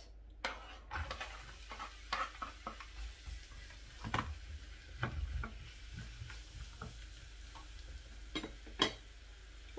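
Chopped onion sizzling as it goes into hot olive oil in a frying pan, starting about half a second in, with clicks and knocks from a wooden spatula scraping it off the cutting board and stirring it against the pan.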